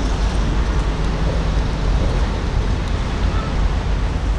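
Steady low rumble under an even hiss, with no separate events: the open-air ambience beside a large docked cruise ship.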